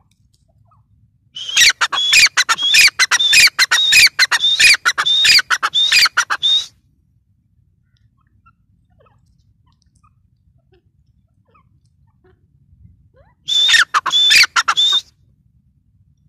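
Grey francolin calling: a loud run of rapidly repeated shrill notes lasting about five seconds. After a long pause comes a second, shorter run of about a second and a half.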